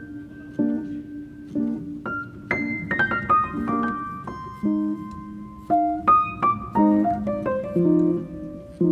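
Solo piano background music: a melody of struck notes over repeated chords.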